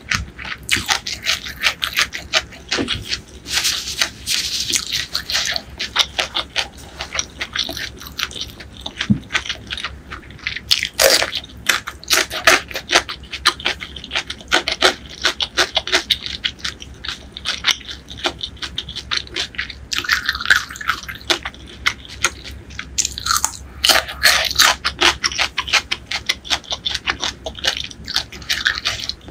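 Close-miked chewing of crispy fried topping with rice and curry: a steady run of quick crunches and mouth clicks, with louder crunching about eleven seconds in and again about twenty-four seconds in.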